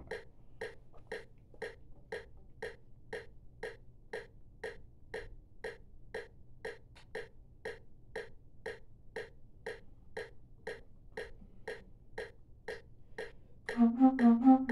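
Metronome clicking steadily, about two clicks a second. About a second before the end, a low flute with a curved headjoint comes in with a few short, separate low notes.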